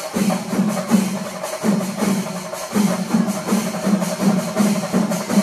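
Loud percussion music: drums struck in a fast, steady rhythm, with a bright metallic wash like cymbals over it.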